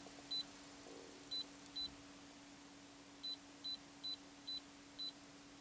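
iCarsoft i960 handheld scan tool beeping at each button press as its menu is scrolled: about nine short, high beeps in quick runs, with a pause of about a second and a half in the middle, over a faint steady hum.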